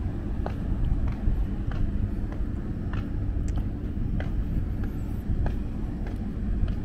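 Footsteps at a steady walking pace, about three every two seconds, over a steady low outdoor rumble.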